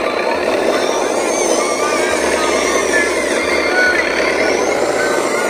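Electric drive motor and gearbox of a radio-controlled model truck whining as it drives through mud, the high whine rising and falling with the throttle.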